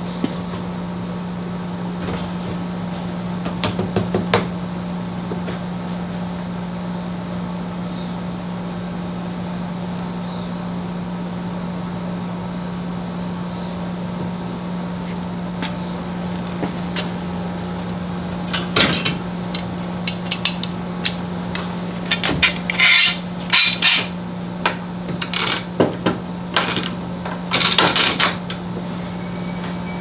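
Metal clamps clinking and knocking as they are handled and set, in a cluster of sharp clicks and knocks through the second half, over a steady low hum.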